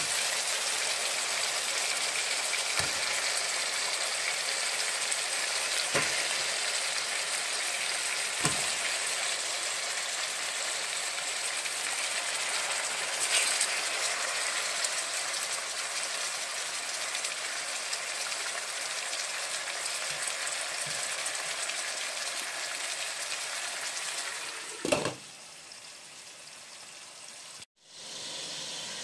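Chicken drumsticks and onions sizzling in oil in a stainless steel pot: a steady frying hiss with a few light knocks as pieces are set in. Near the end the sizzle cuts off abruptly and gives way to a quieter hiss.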